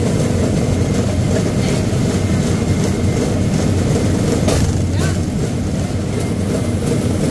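Rail bike's steel wheels running steadily along the track, a continuous low rumble, with a single sharp click about four and a half seconds in.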